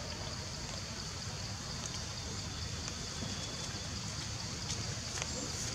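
Steady outdoor forest ambience: an even rushing hiss with a continuous high-pitched buzz band over a low rumble, and a few faint clicks.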